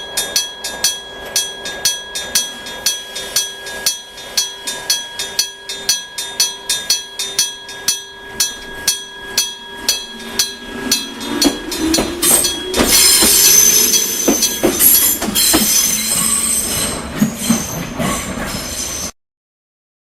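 Electromechanical level-crossing gong striking evenly about three times a second with a ringing tone. From about eleven seconds in, an electric train passes over the crossing: a rising motor whine, then loud wheel and rail noise with squeal over the gong. The sound cuts off suddenly near the end.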